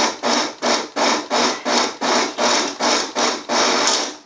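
Countertop blender pureeing diced tomatoes with dried spices into a no-cook pizza sauce. The motor and blades run in short, even pulses, about three a second, with one longer run near the end.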